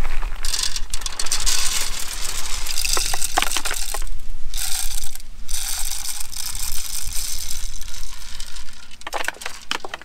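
Shelled corn kernels poured from a cardboard box into a plastic cup and then into a handheld grain moisture tester, filling it for a moisture reading: a dense rattling hiss of dry kernels, with brief breaks about four and five seconds in and a few sharp clicks near the end.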